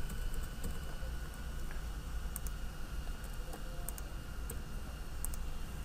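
Computer keyboard typing and mouse clicks: scattered light, faint key taps over a steady low hum.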